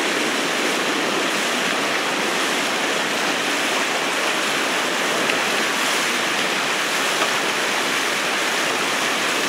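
Steady rush of water as the outrigger canoes move through it, a constant hiss with no rhythm.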